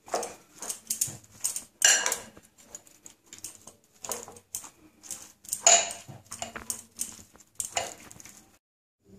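A metal spoon clinking and scraping irregularly against a glass bowl while it stirs raw chicken pieces with chopped tomato and spices into a marinade.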